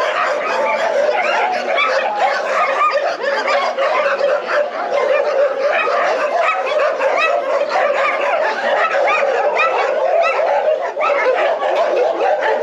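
Many dogs in shelter kennels barking at once: a continuous, unbroken chorus of overlapping barks.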